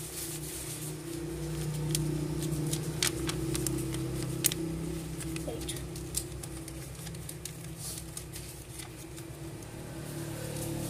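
Lined paper rustling and crackling with small sharp clicks as a paper plane is folded and creased by hand, over a steady low hum.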